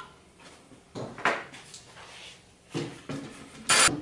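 Plywood apple box handled on a plywood workbench: a few wooden knocks as it is set down and shifted, then a short, louder scrape of wood on wood near the end.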